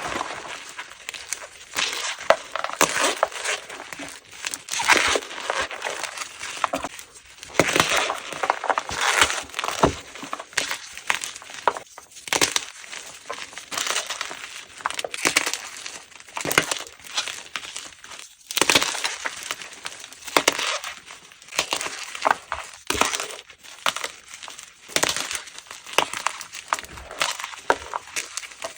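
Blocks of plain gym chalk (magnesium carbonate) being crushed close up: a run of crisp, powdery crunches and crumbles, one or two a second.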